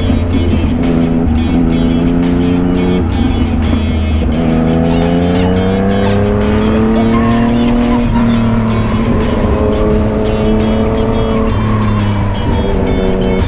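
Yamaha MT-09's three-cylinder engine running under way, its note climbing steadily for a few seconds as the bike accelerates and dropping a couple of times, as at gear changes. Background music with a steady beat plays along with it.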